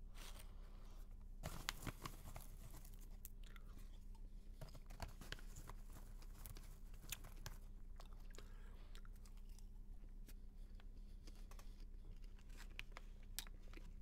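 Faint crunching of popcorn being chewed, with scattered crackles of a plastic bag being handled.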